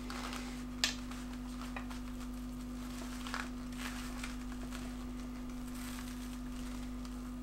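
Faint handling noise of fingers working a knot in thin shock cord against harness fabric: small rustles and a couple of light clicks, the clearest about a second in, over a steady low hum.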